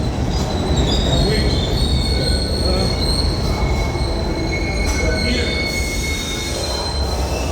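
New York City subway train running with its steel wheels squealing on the rails: thin high-pitched squeal tones held over a steady low rumble.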